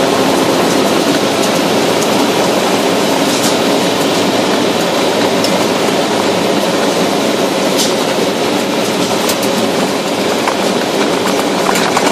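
Car tyres rolling over a gravel road: a steady, loud crunching rumble with a few scattered sharp ticks.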